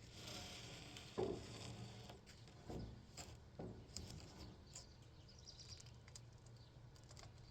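A few faint knocks and clunks as a log dog is set against the log on the sawmill bed, the loudest about a second in, over a low steady hum.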